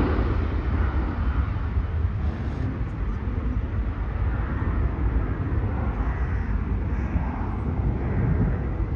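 Jet airliner climbing away just after takeoff: a steady low engine rumble that slowly fades as it recedes.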